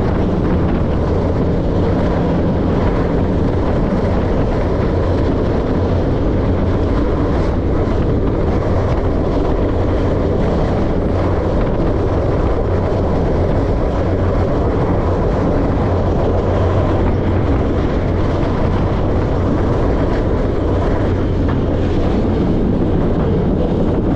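Steady rumble of a freight train running at speed, heard from on board a car.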